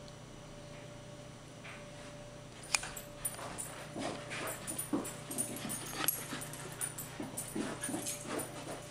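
Dogs, a beagle and a small black dog, whimpering and yipping in short bursts while they play, with scattered clicks and jingles. It starts with a sharp click about three seconds in, after a quiet opening.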